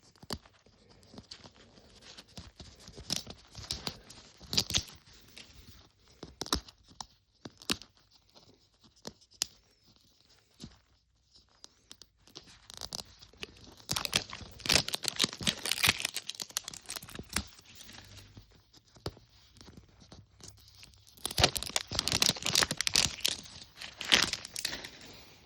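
Plastic wrapping torn and crinkled as a Mini Brands capsule ball is unwrapped, with scattered small clicks and taps. There are two longer, louder stretches of tearing and rustling, one about halfway through and one near the end.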